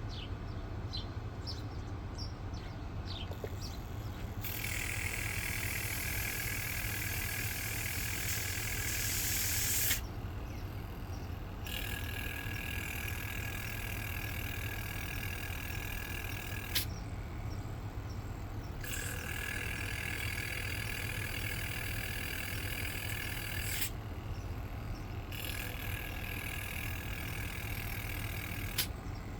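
Aerosol cleaner hissing as it is forced through a pulsed fuel injector in four long bursts of about five seconds each, with short pauses between them.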